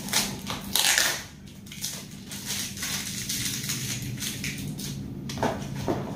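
Small cardboard LED-bulb boxes being handled and opened by hand: irregular crinkling, tearing and scraping of card, loudest about a second in. A faint steady low hum runs underneath.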